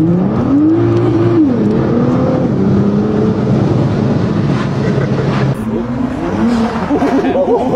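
Nissan GT-R engine accelerating hard. Its pitch rises through a gear to a peak about a second in, drops at the shift, rises again, then holds steady. Near the end it changes to a wavering, uneven engine note.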